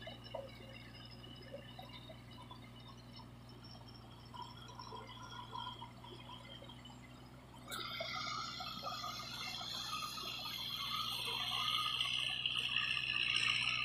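Kubota MU4501 45 hp diesel tractor working a flooded paddy field: at first its engine is a faint steady hum in the distance. About eight seconds in the sound jumps louder, with water and mud churning and splashing around the tractor and its implement, growing louder as it comes closer.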